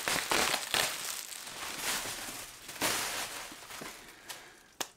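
Plastic bubble wrap crinkling and crackling as it is handled and pulled off a package, in irregular surges that die down near the end.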